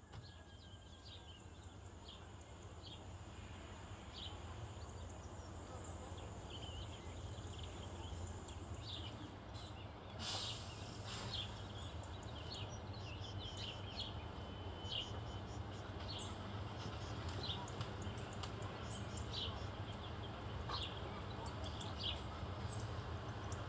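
Outdoor ambience fading in over the first few seconds: many short bird chirps scattered throughout, over a steady low hum and background noise.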